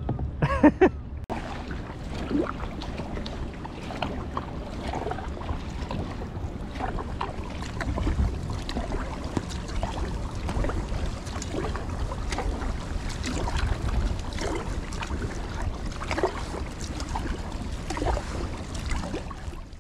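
Kayak paddle blades dipping and splashing through the water in repeated strokes, with wind buffeting the action-camera microphone as a steady low rumble.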